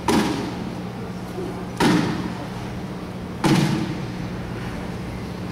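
Three heavy thumps about a second and a half apart, each with a short ringing tail, over a steady low hum.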